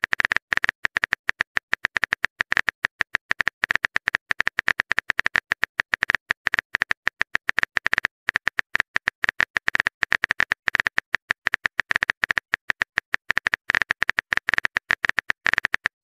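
Phone-keyboard typing clicks from a texting app as a message is typed out letter by letter: a fast, uneven run of short, sharp taps, roughly ten a second.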